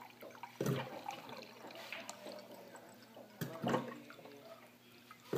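Water pouring from the push tap of a countertop water dispenser into a glass mug, with a few louder knocks, about a second in, past the middle, and at the end.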